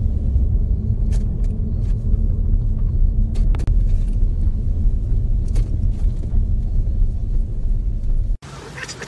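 Loud, steady low rumble of a moving car heard from inside the cabin: road and wind noise, with a few faint clicks. It cuts off abruptly near the end.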